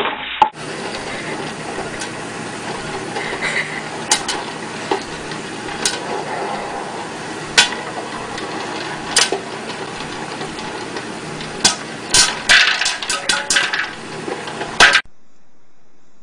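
Electric stirring popcorn popper with a clear dome lid: kernels popping against the dome over a steady hiss. The pops are single and spaced a second or two apart at first, then come quickly in a burst of many near the end.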